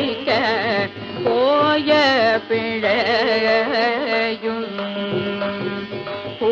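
Devotional music in Carnatic style: an ornamented melody sliding between notes over a steady held drone.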